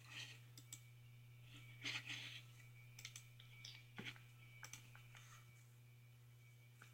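Faint, irregular clicks and soft squishes of a slime mixture being worked in a bowl, over a low steady hum.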